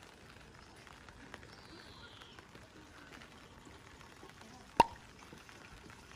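Light rain falling, a faint patter with scattered small drips, and one sharp click about five seconds in.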